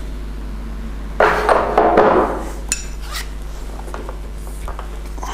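Metal parts of a bearing press clanking and clinking as the tool is handled and fitted through the frame. There is a cluster of louder clanks a little over a second in, and two sharp, ringing clinks around the three-second mark.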